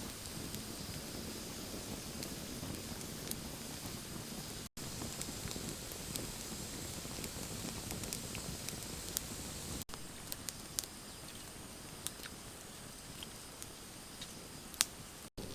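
Outdoor ambience: a steady hiss with faint, high, steady tones above it and scattered small clicks and crackles. It cuts out abruptly three times, at edits.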